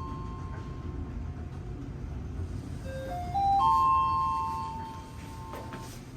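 Mitsubishi NexCube elevator's updated four-note chime: a rising four-note chime, the end of one ringing out at the start and another sounding about three seconds in and ringing on for a few seconds, over a steady low rumble.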